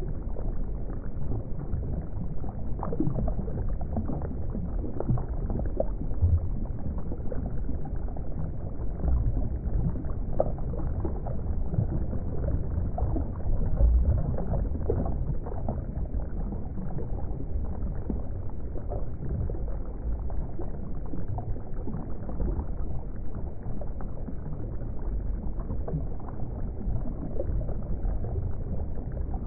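Steady underwater-style water ambience: a low rumble of moving water with faint scattered crackles.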